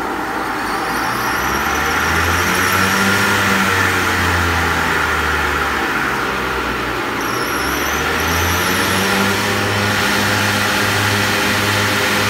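Plastic double dryer machine running: its electric motor and spinning rotor give a steady mechanical hum. A low throb pulses about once a second in the second half.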